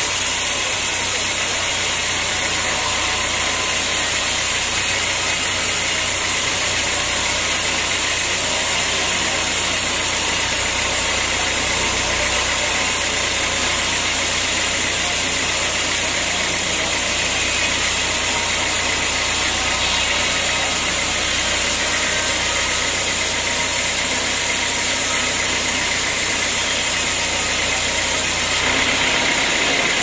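Band sawmill running, its blade cutting lengthwise through a hard acacia log: a steady, loud mechanical drone and sawing hiss with a low hum underneath. About two seconds before the end, the sound changes suddenly and the low hum drops away.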